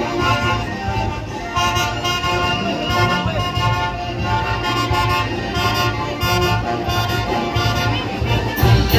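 Band music with fiddles and wind instruments playing sustained melody notes over a steady, pulsing bass beat.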